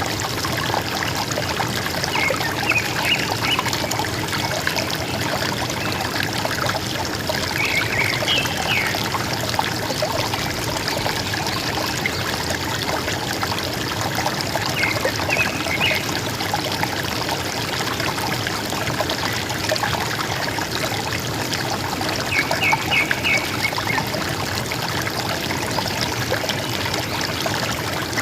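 River water gurgling and trickling steadily. A bird's short call of a few quick high notes comes four times, about every six to seven seconds.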